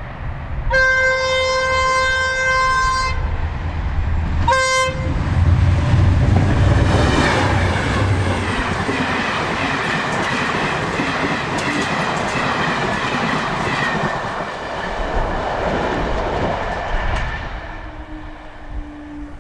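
GM 071 class diesel locomotive horn sounding one long blast and then a short one, followed by the diesel engines passing close and the rattle and clickety-clack of the Cravens coaches going by, fading near the end.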